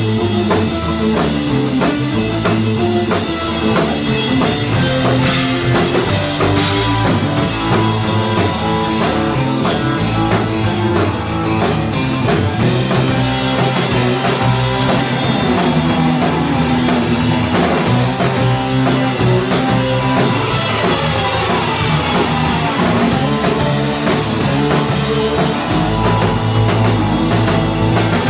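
Live instrumental surf rock: electric guitars playing over bass and a drum kit, with no vocals.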